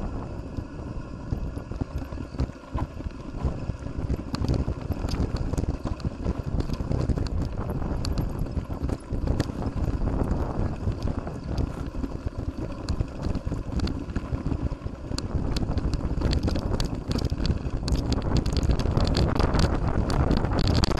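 Mountain bike clattering and rattling over a rough trail, with many quick knocks over a low rumble and wind buffeting the microphone; the clatter grows louder near the end.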